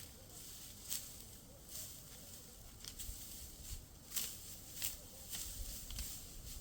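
Faint, scattered crackles and rustling, a few sharp ticks a second or more apart over a soft low rustle.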